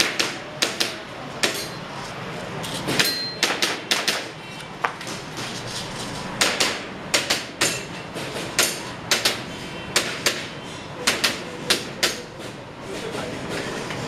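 Airsoft pistol shots: sharp cracks fired in quick strings of two to four, with short pauses between strings. The shots stop about a second and a half before the end.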